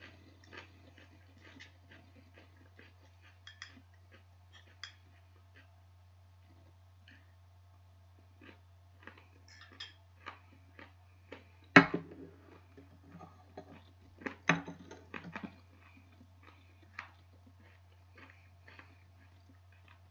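Eating from a bowl: a fork clinks and taps against the dish in many small scattered ticks, with chewing. Two louder clatters come about twelve and fourteen and a half seconds in.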